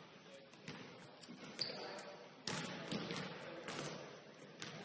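A basketball bouncing on the court, several sharp thuds at an uneven pace, with voices in the background.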